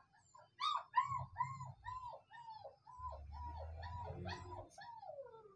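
A puppy whimpering in a string of short high whines, about two a second, each rising and falling in pitch. The last whine is longer and slides steadily down.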